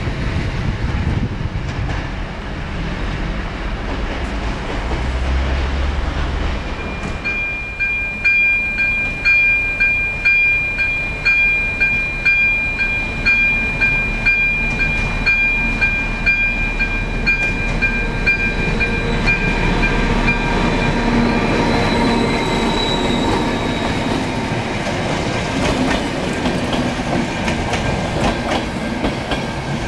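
A ČD class 754 diesel locomotive runs under load as it pulls a passenger train past, its engine rumbling low at first. From about seven seconds in a steady high whine joins, together with a regular clickety-clack of wheels over rail joints. Near the end the whine gives way to the rolling rumble of the coaches going by.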